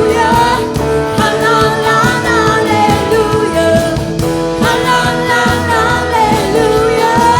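Live praise-and-worship band music: singing over a steady drum and bass beat.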